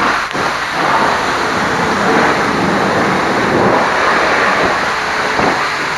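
High-pressure washer spraying water onto a truck, a loud, steady rushing hiss.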